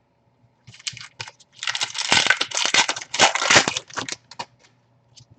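Plastic trading-card pack wrapper being torn open and crinkled by hand. A few light rustles and ticks lead into about two seconds of dense crackling, tapering off into a few more ticks.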